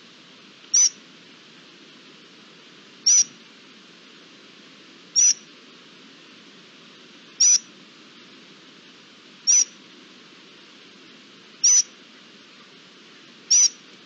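A short, high-pitched animal call that falls in pitch, repeated seven times at an even pace of about one every two seconds, over a steady low background hiss.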